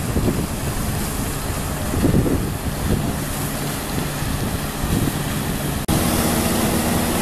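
Wind buffeting the microphone over the rushing splash of the Merlion fountain's water jet falling into the bay. About six seconds in the sound cuts off abruptly and is replaced by a steadier low hum.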